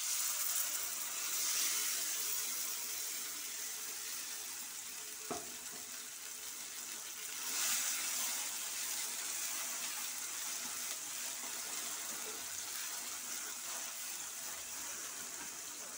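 Hot oil and fried onions sizzling in a steel kadai as ground amaranth greens paste is poured in, starting suddenly, then stirred in with a wooden spatula; the sizzle swells again about halfway through. A single knock a little after five seconds in.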